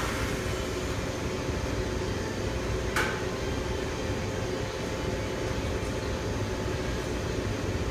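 Running thermoforming machine: a steady hum and air rush with a faint held tone, and one sharp click with a short hiss about three seconds in.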